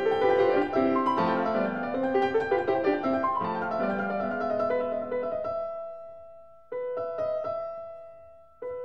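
Background piano music: quick moving notes for the first half, then slower held chords that fade away, one struck about two-thirds of the way through and another just before the end.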